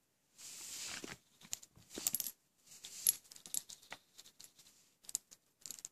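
Small glass stink-bomb ampoules clinking against each other and tapping on the table as they are handled and set down, several sharp ringing clinks, after a brief rustle about half a second in.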